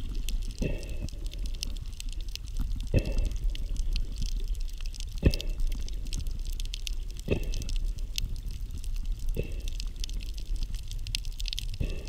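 Underwater recording of a scuba diver breathing through a regulator: a short burst of bubbles and regulator hiss about every two seconds, over a steady fine crackling in the water.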